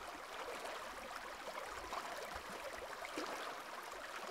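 Faint, steady hiss of background noise, with no speech or music.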